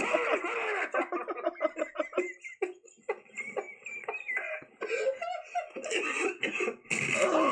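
People laughing hard, with a quick run of short ha-ha-ha pulses about a second in, then longer breathless laughs.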